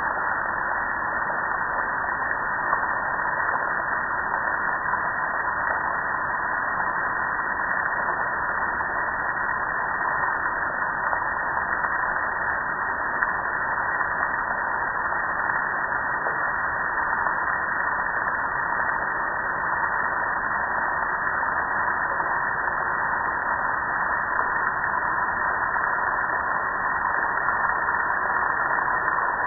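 Water from a garden-hose spray nozzle pelting a metal gas grill in a steady, unbroken spray.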